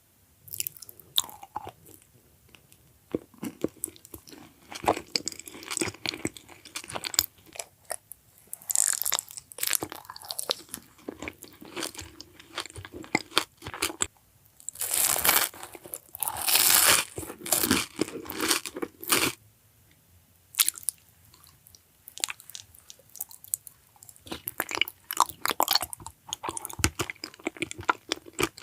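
Crunchy food being bitten and chewed close to the microphone, in irregular bursts of crackling crunches with short pauses between mouthfuls.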